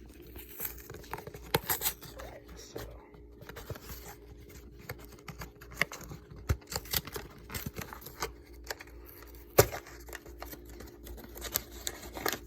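An old cardboard pudding-mix box being torn open by hand and the paper packet inside handled: scattered tearing, scratching and crinkling noises, loudest about a second and a half in and again near ten seconds.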